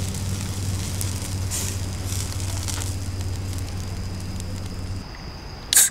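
Steady crackling and sizzling over a low hum, cutting off about five seconds in, followed by a short sharp sound near the end.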